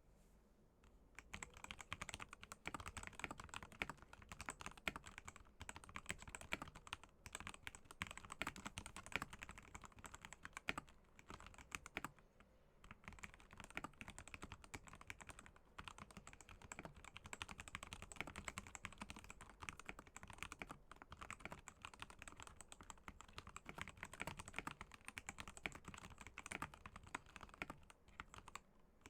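Typing on an NJ80 mechanical keyboard with stock Gateron Yellow Pro linear switches on a brass plate, tape-modded and dampened with noise-absorbing foam: a fast, continuous stream of key clacks that starts about a second in.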